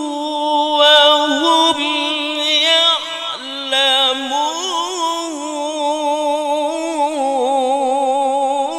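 A man's voice reciting Qur'an verses in melodic tilawah style through a microphone, held notes with fine wavering ornaments gliding up and down, with a short break about three seconds in.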